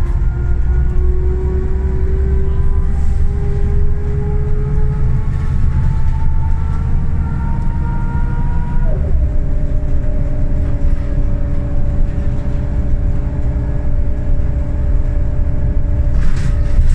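Scania L94UB single-deck bus from inside the saloon, its nine-litre five-cylinder diesel and drivetrain running over a low road rumble. A whine rises steadily as the bus accelerates, drops sharply at a gear change about halfway through, then holds steady.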